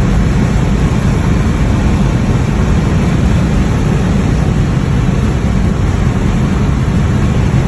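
Steady road and wind noise inside a car cruising at highway speed, a deep, even rumble.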